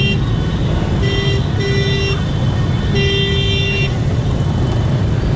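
Many motorbikes moving slowly in a dense crowd, a steady engine and traffic rumble, with horns tooting on and off: a short blast at the start, two around a second in, and a longer one about three seconds in.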